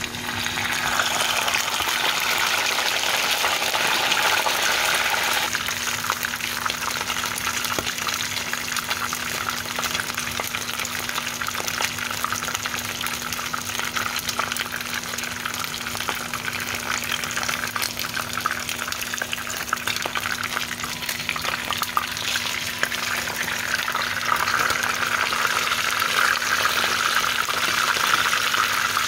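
A chicken leg quarter goes into hot oil in a nonstick frying pan, and the oil starts sizzling right at the start. The sizzle then carries on steadily, with fine crackling, as the chicken shallow-fries.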